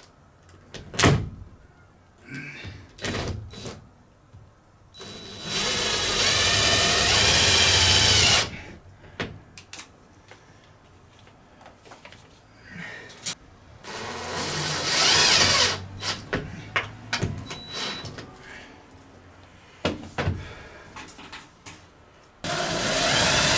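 Power drill running in three bursts of a few seconds each, its motor pitch rising and falling, driving small screws. Clicks and knocks of handling come between the runs.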